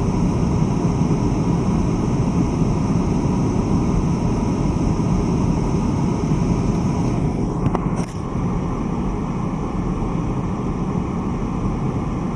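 Volkswagen car driving on snowy roads: a steady hum of road and engine noise. There is a brief sharp click about eight seconds in, and the noise is slightly quieter after it.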